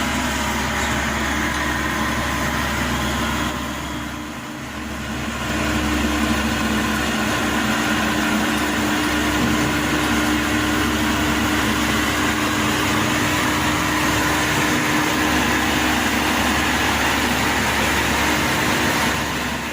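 Maxxi Bimo Evo 102 L combine harvester's engine running steadily. It dips briefly about four seconds in, then settles back to a steady running note.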